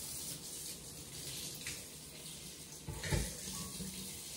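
Kitchen tap running steadily as a pot is filled with water for the Instant Pot, with a dull knock about three seconds in.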